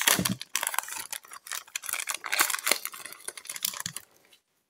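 Foil Pokémon booster pack wrappers crinkling and clicking as they are handled, a dense run of small rustles that stops about four seconds in as the pack is set down.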